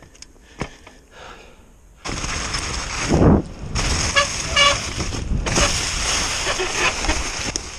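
Mountain bike starting down a snowy, rough trail: after a few light clicks, loud wind rush on the camera microphone and the bike rattling and clattering over the bumpy ground start about two seconds in. Two short high squeaks come near the middle.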